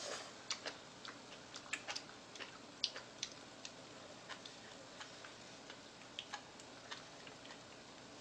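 Faint, irregular small clicks and ticks of eating with chopsticks at the table, about two or three a second with uneven gaps.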